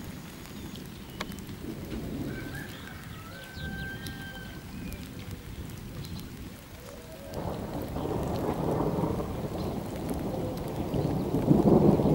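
Thunder rumbling in a thunderstorm, with rain falling. The rumble swells about seven seconds in and is loudest near the end.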